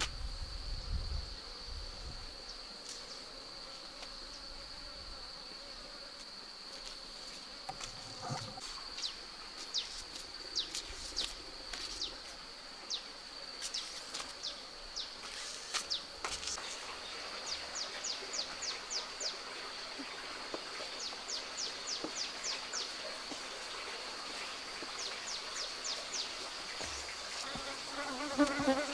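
A steady high-pitched insect drone with runs of quick chirps. In the last couple of seconds the low buzzing of a cluster of honey bees swells up close.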